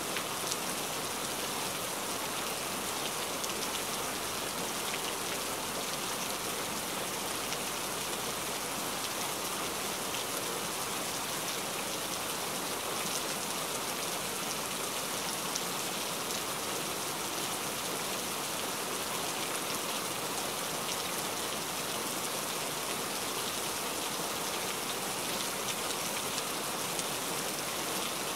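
Steady rain falling: an even hiss with many small drop ticks, unchanging throughout.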